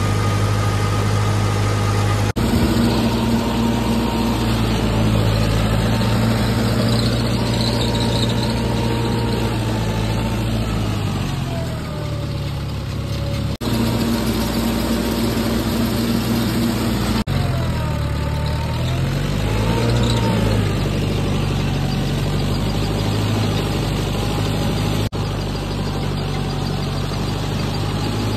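Mahindra 585 tractor's diesel engine running steadily under load, driving a Shaktiman rotavator through flooded paddy mud. Twice its note sags in pitch and comes back up, with a whining tone bending along with it.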